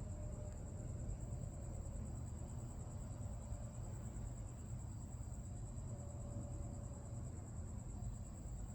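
Crickets trilling steadily in one continuous high tone over a low background rumble. No thunder is heard.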